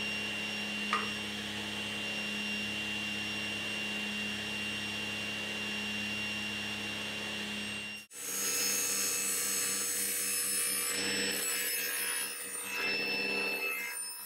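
Laguna Fusion 3 cabinet saw running steadily with a constant whine. After a sudden break about eight seconds in, it rips through a strip of wood fed along the fence with a push stick, louder and more uneven.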